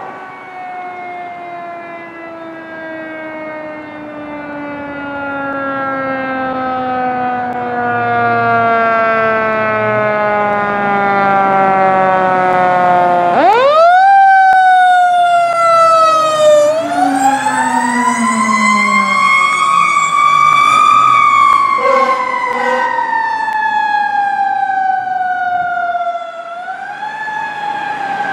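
Fire engine's mechanical siren coasting down in one long, slow fall in pitch. About halfway through it is wound up sharply, then climbs again to a peak and winds slowly back down, with another quick rise near the end.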